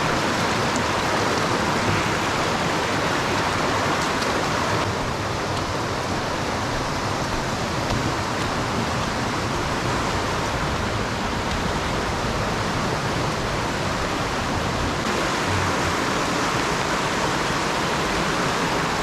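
Millard Creek in high flow after a storm: a steady, even rush of fast-running water.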